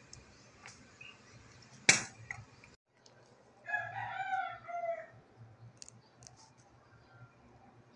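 A rooster crows once, about a second and a half long and falling in pitch at the end, about four seconds in. Before it there is a single sharp click or knock, the loudest sound here.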